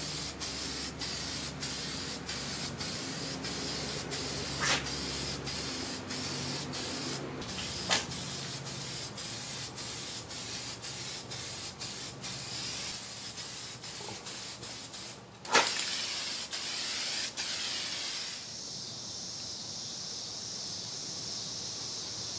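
Aerosol spray can of primer hissing as it is sprayed onto steel plate, the hiss broken by many short clicks and stops. About three-quarters through, the hiss turns narrower and steadier.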